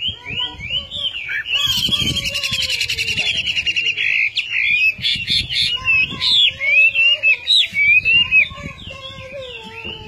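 Chinese hwamei singing a loud, varied song of whistled phrases, with a fast trill of rapidly repeated notes from about a second and a half in, then looping, rising and falling whistles.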